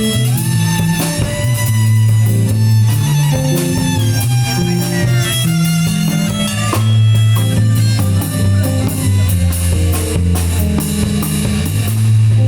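Instrumental break of a song: guitar and bass with drums, and a violin or fiddle line above.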